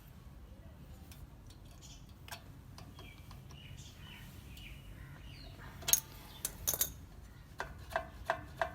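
Sharp metal clicks and clinks from a rear drum brake shoe, its hold-down spring and washers being handled: a few clicks about six seconds in, then a quick run of about five ringing clicks near the end, over a faint low hum.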